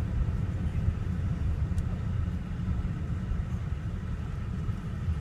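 Steady low rumble of background noise, with no other clear sound.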